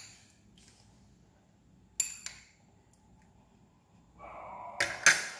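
A metal spoon clinking against a ceramic plate while strawberry sauce is spooned onto French toast: one sharp, ringing clink about two seconds in, then a brief scrape and two more quick clinks near the end.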